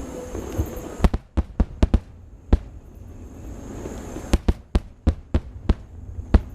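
Fireworks display: a rapid series of sharp bangs from bursting shells, a quick cluster of about six about a second in, then another run of several in the second half.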